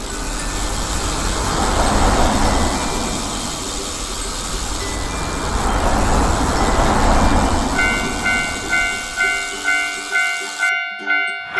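Rumbling vehicle noise that swells and fades. About eight seconds in, a railroad crossing warning bell starts ringing, about two dings a second. Near the end the rumble cuts off abruptly and the bell rings on alone.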